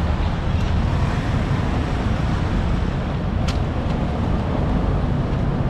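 Steady street traffic noise with a low engine rumble, and one short click about three and a half seconds in.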